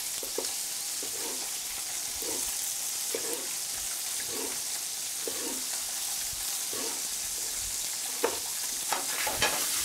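Turbot frying in olive oil in a pan, a steady sizzle. Over it, soft knocks about once a second as a knife slices through a lemon onto a wooden cutting board.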